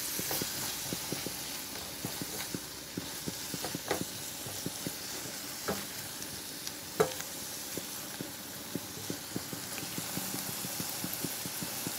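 Tofu, spring onions and garlic sizzling in a stone-coated frying pan while a silicone spatula stirs them, scraping and tapping against the pan many times, with one louder knock about seven seconds in.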